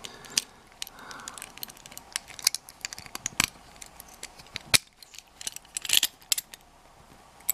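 Small metal clicks and clinks of jiggle keys and lock-picking tools being handled, with a few sharper knocks scattered through.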